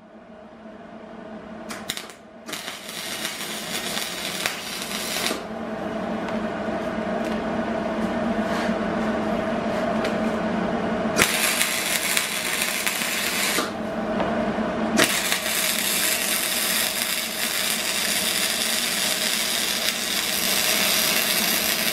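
Hobart Handler 140 MIG welder tacking half-inch rebar stake pieces held in a vise: spells of arc crackle, a short one about two seconds in, a longer one right after, another past the middle and a long run through the last third, over a steady hum.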